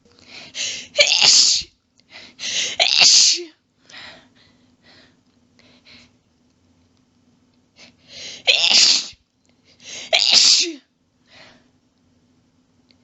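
A person's allergy sneezing fit: four loud sneezes in two quick pairs, one pair in the first few seconds and another about two-thirds of the way in, with short, faint breaths between them.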